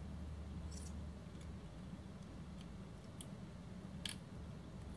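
Razor blade clicking and scraping against a fluted Rolex bezel as it is pried up from the case: a few faint, sharp ticks, the clearest about four seconds in.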